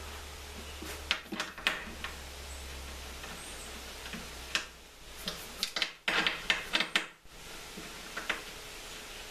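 Scattered light clicks, taps and rubbing as hands work a rubber hose onto the fittings of a plastic fluid reservoir and a hydraulic lift pump, with a cluster of sharp clicks a little past a second in and a denser run of them around six to seven seconds in.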